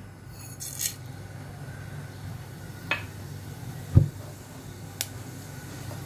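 Whole spices tipped from a steel plate into a pot of oil with a brief hissing rattle, followed by a couple of light clicks and a dull knock, over a low steady hum.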